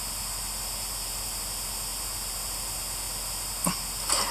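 Steady static hiss, with two short bursts of sound near the end.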